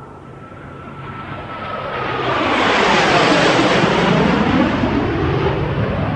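Jet airplane flying past: the engine roar and whine build steadily, peak about three seconds in as the whine drops in pitch while it passes, then stay loud as it moves away.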